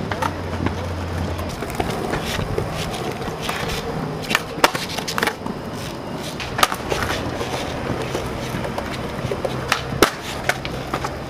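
Skateboard wheels rolling over smooth concrete with a steady rough rumble, broken by several sharp clacks of boards striking the ground.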